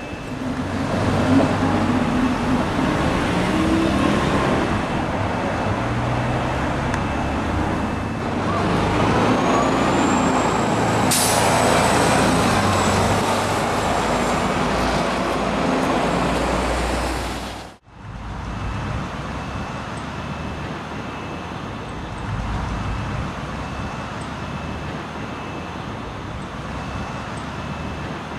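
City bus running in street traffic, with a sharp burst of air-brake hiss about eleven seconds in. After a sudden cut, quieter steady outdoor background noise.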